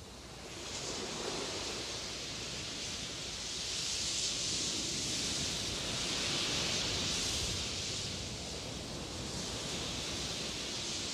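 A steady rushing hiss that swells and eases over several seconds, like surf or wind.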